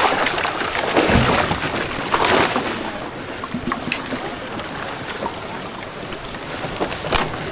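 Rush of a fast-flowing flooded river, a steady wash of water noise. It is louder in the first few seconds, with two stronger splashing surges about one and two seconds in.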